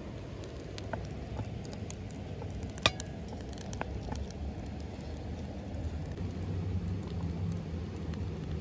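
Wood fire crackling with scattered small pops over a steady low rumble, with one sharp, louder click about three seconds in.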